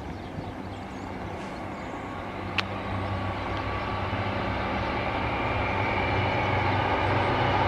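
Northern Class 150 Sprinter two-car diesel multiple unit approaching, its engine hum and wheel-on-rail noise growing steadily louder. One short click about two and a half seconds in.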